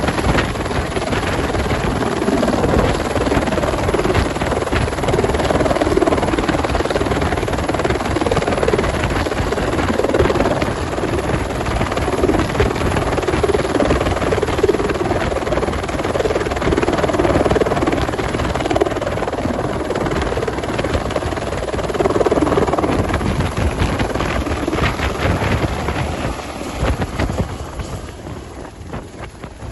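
Helicopter running, a steady loud rotor and engine noise that fades away over the last few seconds.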